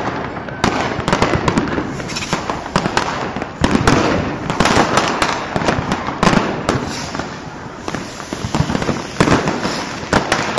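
Many fireworks and firecrackers going off at once: a constant din of overlapping sharp bangs and crackling, with rockets bursting overhead. There are louder clusters of bangs about four and nine seconds in.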